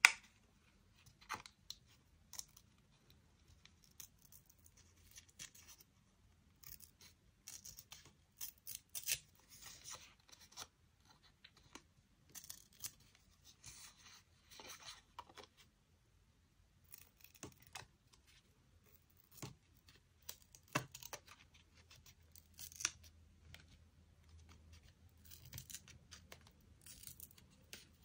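Paper being cut with scissors and torn by hand: irregular clusters of short, crisp snips and rips with quiet gaps between.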